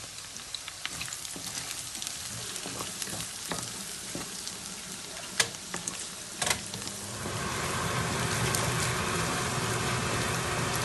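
Onions and ground spices sizzling as they fry in a pan, with sharp clicks and knocks of the spoon stirring against the pan. About seven seconds in, a louder steady rushing noise with a low hum comes in and carries on.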